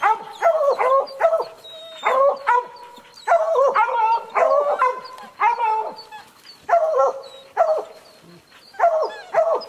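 Hunting hounds barking treed at a mountain lion up in a tree: several dogs bark over one another in quick runs with short pauses between them.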